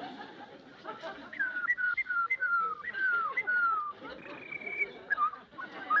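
A man whistling a bird call through pursed lips: a run of about six short notes, each flicking up and then sliding down, followed by one longer, higher held note and a few quick chirps near the end.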